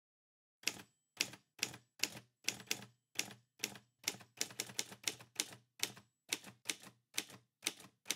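Typewriter keys striking one at a time, about twenty clacks at an uneven two to three a second, as a line of text is typed out letter by letter.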